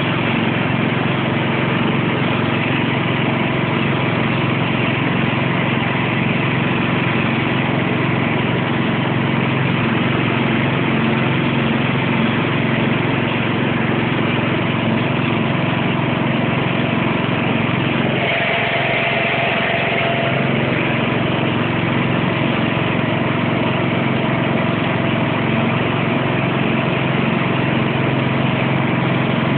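Sentinel garden tractor's engine running steadily at a constant speed. A short higher-pitched sound joins it for about two seconds, roughly two-thirds of the way in.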